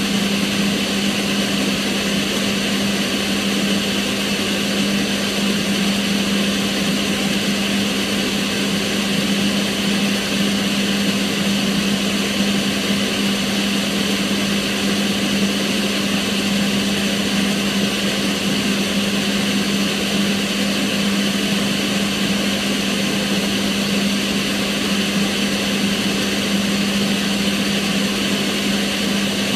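Kitchen range hood extractor fan running steadily: an even rush of air over a constant motor hum, with no change in speed.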